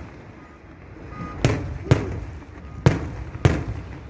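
Aerial fireworks shells bursting: four sharp booms in the second half, spaced about half a second to a second apart.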